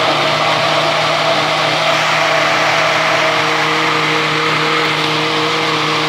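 Walita Delta Eletrônico blender motor running at a steady speed, blending a thick carrot cake batter of raw carrots, eggs and oil.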